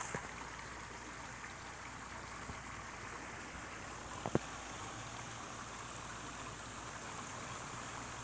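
Steady outdoor background hiss with a faint high band running through it, and a single short click about four seconds in.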